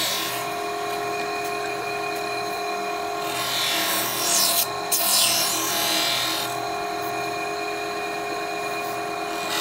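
Surface grinder's abrasive wheel grinding a steel knife blank flat: a steady motor hum under a hiss of grinding that swells about four to five seconds in as the blank passes under the wheel.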